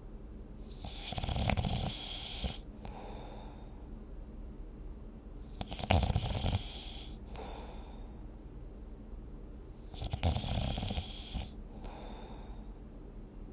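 A dozing person snoring: three loud snores about four to five seconds apart, each followed by a softer breath.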